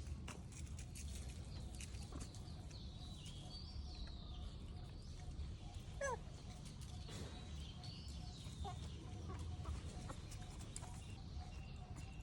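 Scattered animal and bird calls over a steady low background, with one short falling squeal about halfway through.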